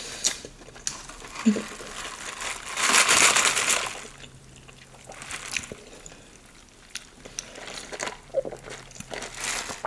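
Peach Mountain Dew soda being sipped through a straw, with a louder hissing slurp lasting about a second around three seconds in and smaller clicks and swallowing sounds around it.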